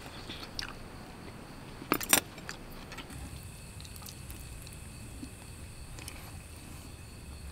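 Two sharp clinks close together about two seconds in, with a few fainter ticks around them. A faint steady high tone sets in about three seconds in.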